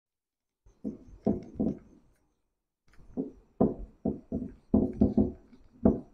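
Whiteboard duster being wiped across the board in quick back-and-forth strokes, erasing marker writing. There are about a dozen short rubbing strokes in two runs, with a pause a little after two seconds.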